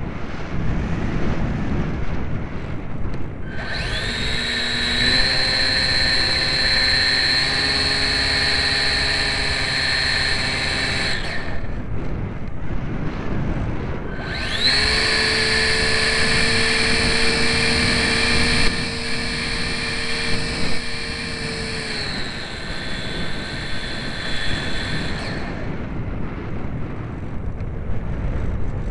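Electric motor and propeller of a GWS Slow Stick RC plane, heard from a camera on board: the motor winds up about three seconds in and whines steadily for about eight seconds, cuts out, then runs again for about eleven seconds before cutting off. Between and after the powered stretches, airflow rushes over the microphone as the plane glides.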